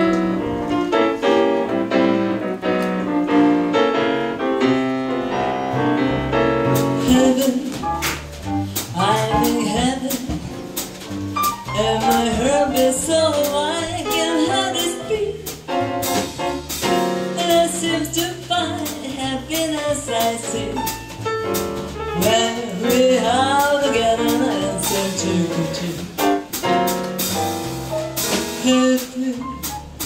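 Live jazz played by a piano, upright bass, drum kit and female vocalist. The piano plays alone at first; about seven seconds in, the drums and cymbals join, and a woman starts singing soon after over the piano, bass and drums.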